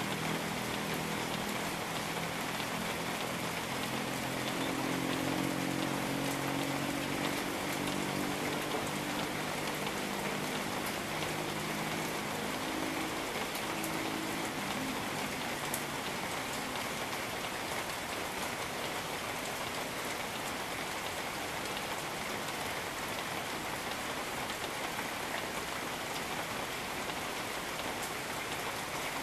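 Steady heavy rain falling on jungle foliage and surfaces, a dense even hiss of drops. A low hum, like a distant engine, runs underneath and fades out about halfway through.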